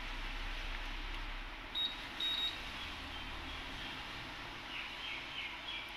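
Erba Chem 5X biochemistry analyzer giving two short high electronic beeps about two seconds in, as its keypad is used and it restarts, over a steady low hum.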